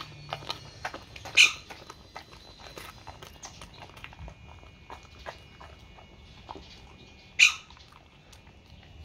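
A dog chewing and crunching a raw narrow-barred Spanish mackerel head, a scatter of wet clicks and cracks from teeth on fish bone that grows sparser after the first few seconds. Two much louder, short, sharp sounds stand out, one about a second and a half in and one near the end.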